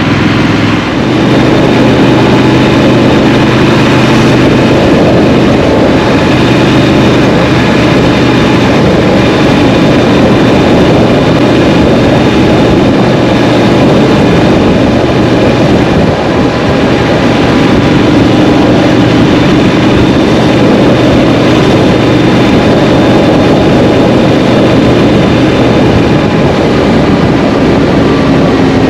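Triumph Street Scrambler's parallel-twin engine running under way, heard with steady wind rush on the microphone; about a second in it pulls away from a slower, idle-like running into steady riding.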